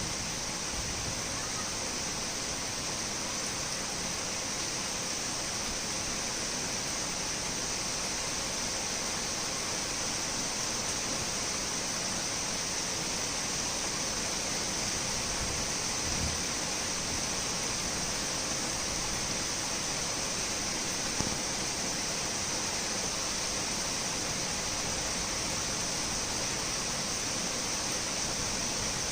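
Torrential rain pouring down steadily, an even rushing hiss with no thunder.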